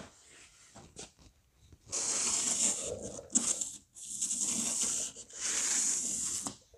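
Hissing from a nozzle in three main bursts of about a second each, with shorter hisses between them, like compressed air or an aerosol spray being let out.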